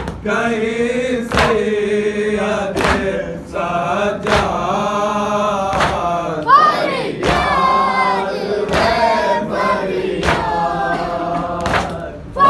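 Men's voices chanting a noha lament together, with sharp strikes, likely matam, landing about every one and a half seconds as a steady beat. About halfway through, one voice rises sharply in pitch.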